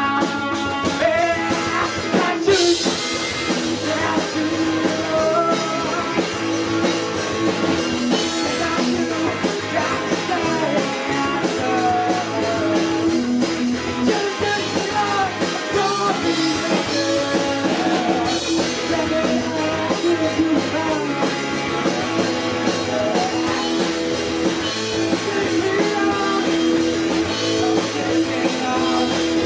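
Live rock band playing: electric guitar over a drum kit, with a steady loud mix.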